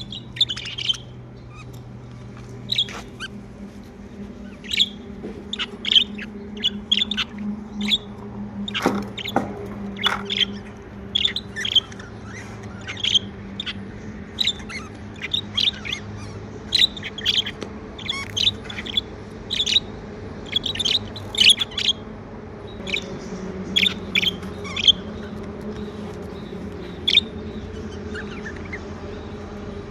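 Pet budgerigars chirping: a busy run of short, sharp chirps, several a second at times, over a steady low hum.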